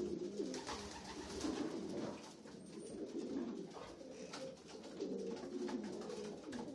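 Racing pigeon cocks cooing in a loft, many low rolling coos overlapping continuously, with a few light clicks among them.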